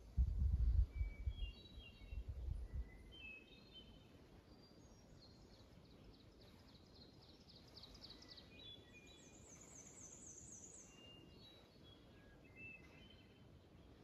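Several songbirds singing: many short clear whistled notes, a long series of repeated notes that grows louder in the middle, and a fast high trill just after it. A low rumble during the first three seconds is the loudest sound.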